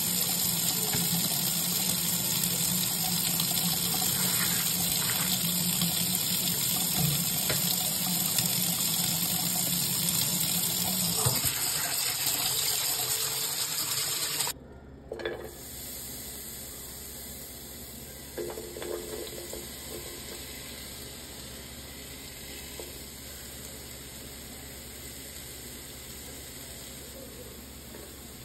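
Tap water running onto turnip greens in a plastic colander in a stainless steel sink, cutting off suddenly about halfway through. After that, a much quieter steady sizzle of onions and bell peppers sautéing in oil in a pot, with a few short stirring sounds.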